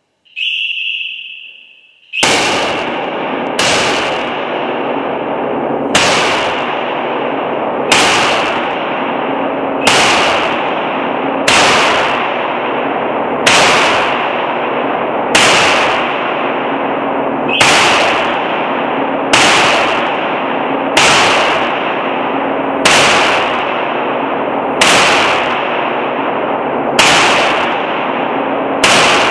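Gunshots on a shooting range, fired at a steady slow pace of about one every two seconds, roughly fifteen in all, over a continuous loud hiss. A short high steady tone sounds about half a second in, before the first shot.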